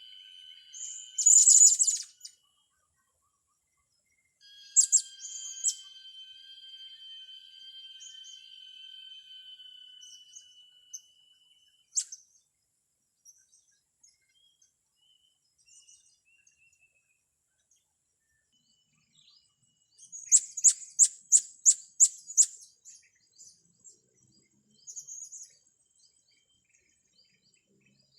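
Young blue-crowned hanging parrots (serindit) giving sharp, thin, high chirps in short bouts, with a quick run of about eight chirps a little after the middle. A faint steady high whistle-like tone runs under the first third.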